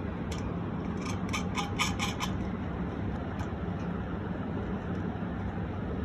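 Small metallic clicks as a nut and washers are turned by hand onto the bolt holding a ceiling fan's downrod to the motor. The clicks come in a quick cluster of about ten between one and two seconds in, over a steady low hum.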